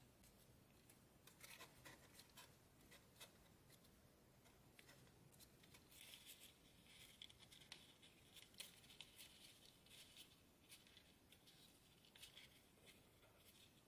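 Quiet crinkling and crackling of origami paper being folded and pinched between fingers, in short irregular bursts. It comes in a few clicks early on and grows busier from about halfway through.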